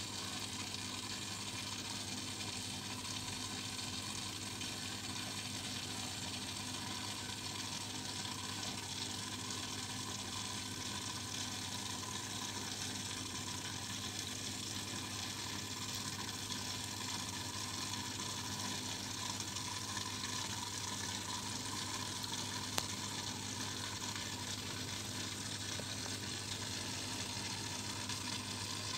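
Aquarium aeration and water running: a steady fizzing hiss of water and air bubbles over a constant low hum, with one sharp click about two-thirds of the way through.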